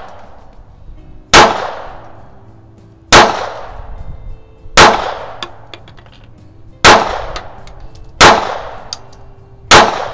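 Six single shots from a JP Sauer & Sohn Model 38H .32 ACP pocket pistol, fired at an even pace about one every one and a half to two seconds, each with a short echoing tail. A few faint clinks fall between the shots.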